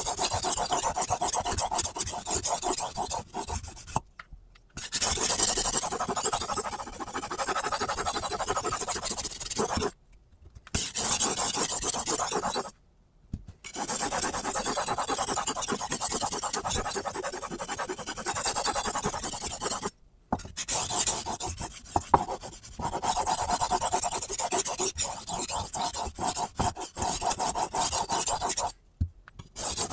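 Steel kitchen-knife blade scraping back and forth on a sharpening stone in rapid strokes, held at a fixed angle by an angle guide clamped to the blade that slides on the table. The scraping stops briefly five times as the blade is lifted and turned over.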